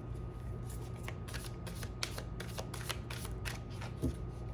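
A deck of oracle cards being shuffled by hand: a run of quick, irregular card flicks.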